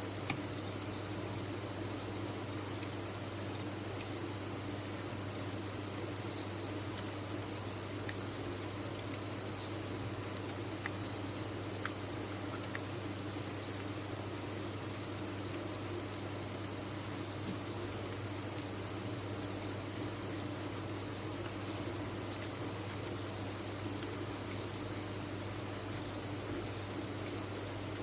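Dense chorus of many farmed crickets chirping together, merging into one continuous high-pitched trill. A faint steady low hum sits underneath.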